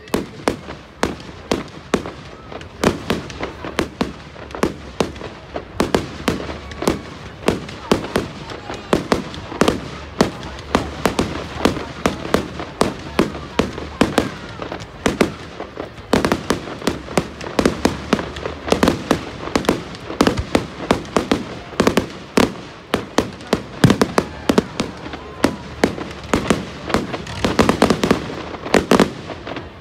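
Fireworks display: a rapid barrage of bangs from aerial shells bursting, several a second, densest and loudest near the end.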